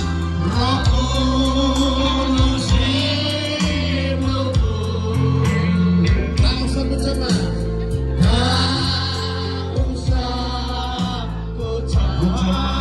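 A man sings a gospel song into a microphone, amplified through PA loudspeakers over electronic keyboard accompaniment with a bass line and a steady beat.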